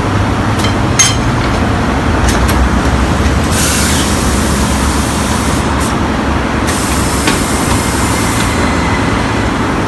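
Two long bursts of compressed-air hiss, one starting about three and a half seconds in and one about a second after the first stops, over a steady low rumble, with a couple of sharp clicks about a second in.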